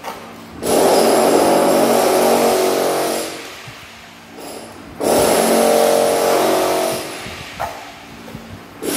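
Steel trowel scraping and spreading wet cement mortar across a concrete floor in two long, loud passes, each lasting two to three seconds.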